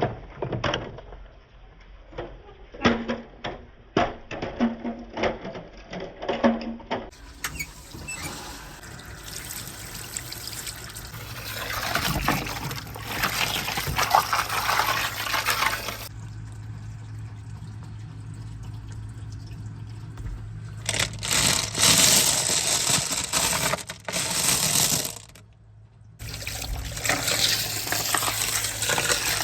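Marbles clicking and clacking along a marble run track, then water running and splashing through the course. The sound changes abruptly several times.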